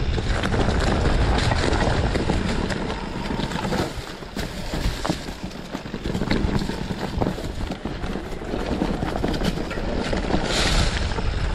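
Wind rushing over the microphone and the bike rattling and clattering as a mountain bike rides fast down a rough dirt singletrack.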